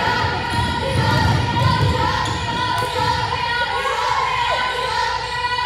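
Basketball being dribbled on a hardwood gym floor, with sneakers squeaking as players run.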